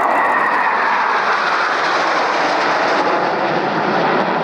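Jet noise from Black Eagles T-50B jets flying past, a steady rushing roar with a whine in it that falls in pitch over the first few seconds as they go by.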